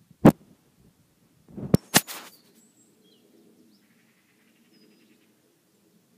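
A sharp knock, then a quick cluster of louder knocks about two seconds in, followed by a few faint bird chirps.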